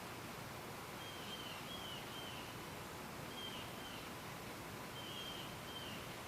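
A bird chirping in short, slightly falling notes, in twos and threes every second or so, over a steady hiss of outdoor background noise.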